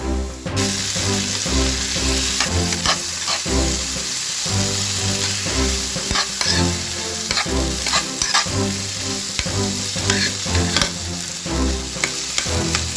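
Potatoes frying in hot pork fat (salo) in a pan, a steady sizzle that starts abruptly about half a second in, with frequent crackles and clicks of stirring. Background music plays underneath.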